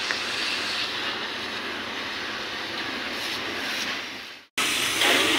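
Water jet from a hose spray gun hissing steadily as it washes the chassis of a tipper truck. There is a short break about four and a half seconds in, and then the spray comes back louder and sharper.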